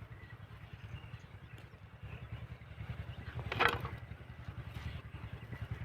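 Steady low, fast putter of a small engine, with one short, louder rush of noise about three and a half seconds in.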